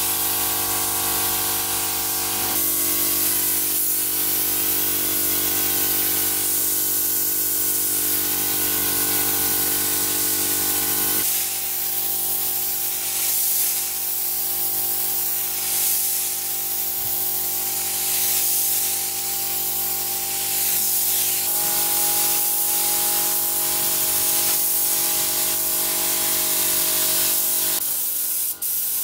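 Compressed-air spray gun hissing steadily as varnish is sprayed onto wooden tabletops. A steady hum of several tones lies underneath and shifts in pitch a few times.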